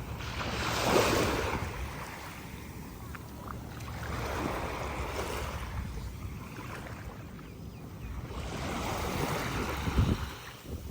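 Small sea waves breaking and washing up the beach, swelling and fading about every four seconds, with wind rumbling on the microphone and a short low gust thump near the end.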